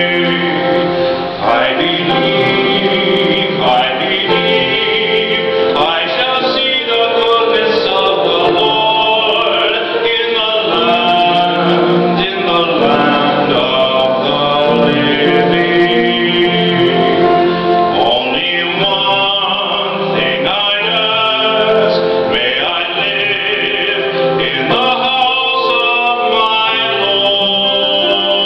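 A man singing a solo song, with long held notes.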